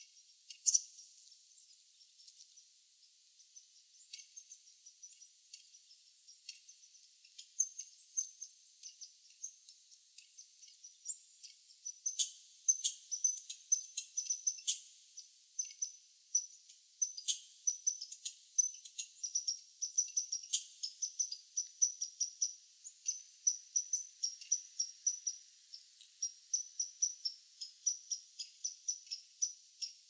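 A woodpecker pecking at peanuts through a metal-mesh feeder: a run of short, sharp, high ticks, sparse at first, then a few a second after several seconds, with several louder taps in the middle.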